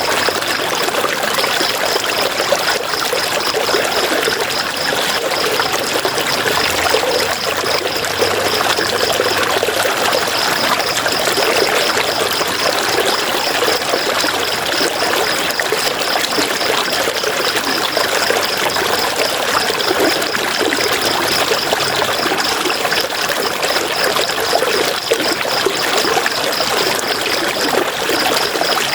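River water rushing and splashing over rocks, a steady, even flow. A high, rapidly pulsing trill runs over it and breaks off briefly twice.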